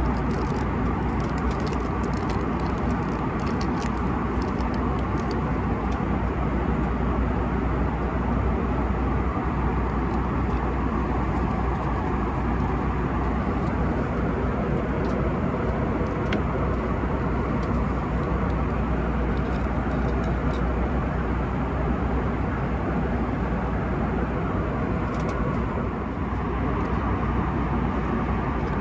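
Steady drone of an Airbus A321-200 passenger cabin in flight, the engine and airflow noise running unchanged, with a few faint light ticks.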